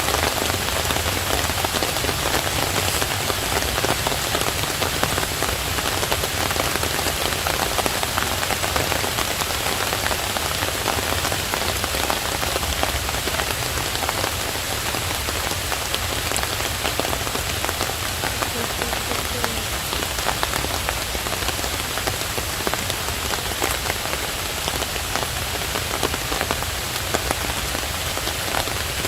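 Steady rain falling, a dense even hiss, with many small crackles and pops of burning firewood mixed through it.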